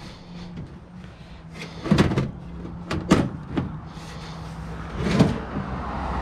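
Knocks and clatter of computer parts and tower casing being handled, a handful of sharp hits with the loudest a little after two seconds and about five seconds in, over a faint low hum. Near the end a steady rushing noise comes up.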